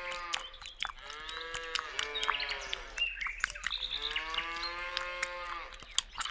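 Cows mooing: a series of long moos of about two seconds each, each rising then falling in pitch, with short sharp clicks scattered throughout.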